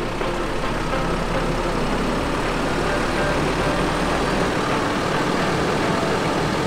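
450-horsepower rear diesel engine of a Newmar Dutch Star motorhome idling steadily.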